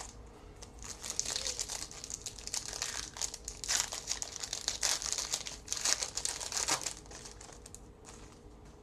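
Crinkling of a football trading card pack's wrapper being handled and torn open, in several rustling surges lasting about six seconds.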